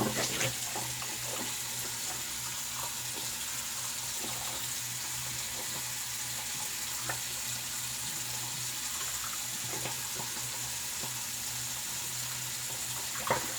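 Sink tap running steadily, water rinsing between shaving passes.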